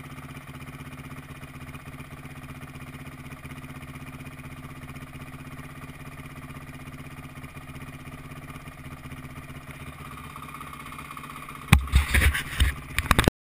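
Dirt bike engine idling steadily. About a second and a half before the end, loud rubbing and knocking from a gloved hand grabbing the handlebar-mounted camera, then the sound cuts off.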